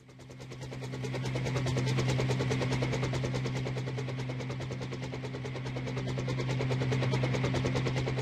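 Small electric R/C helicopter's motors and rotors spinning up and running steadily, with a low hum and a very fast buzzing chatter.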